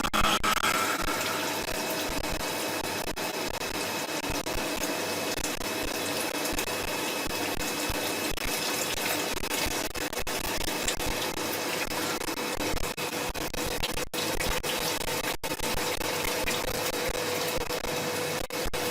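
CNC machining center cutting a spiral bevel gear, with flood coolant spraying: a steady rush like running water and a faint steady whine underneath.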